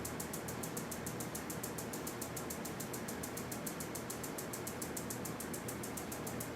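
Rapid, even, high-pitched mechanical ticking, about seven ticks a second, over a steady low hum.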